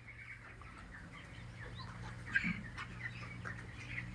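A flock of young chicks chirping in short scattered calls, over a steady low hum, with one brief louder sound about two and a half seconds in.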